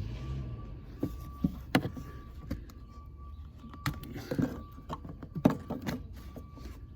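Scattered knocks, taps and rustles of hands and a hand tool working carpet in a car's footwell, with sharper knocks about two seconds in and again past five seconds.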